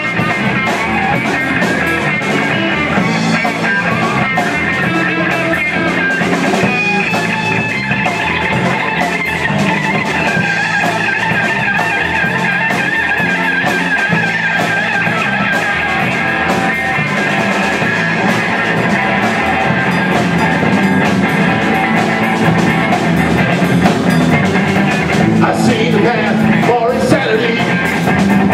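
A live rock band playing a song on electric guitars and a drum kit, loud and without a break.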